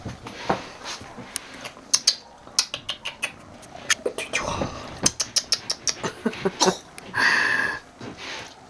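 Kitten meowing once, a call of under a second near the end, after a run of many sharp clicks and taps.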